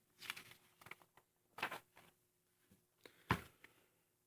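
Faint handling noises of small parts on a workbench: a few soft rustles and light taps, with one sharper click a little over three seconds in.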